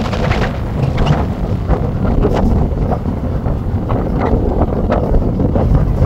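Wind buffeting the microphone: a steady low rumble with irregular gusty flares.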